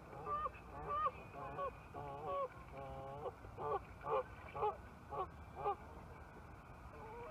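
Canada goose honking, a run of about a dozen calls roughly two a second that stops a little after halfway through.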